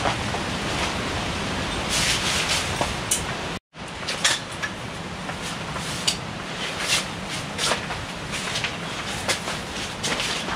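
Steady wind rushing across the microphone, with scattered light clicks and knocks. The sound cuts out briefly once, a few seconds in.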